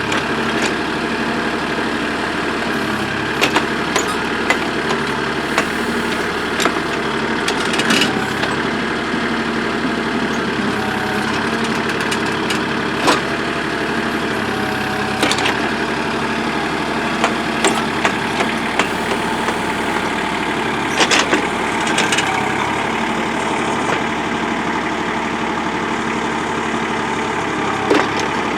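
Backhoe engine running steadily, with sharp knocks and scrapes every few seconds as the bucket digs into hard lamproite ore.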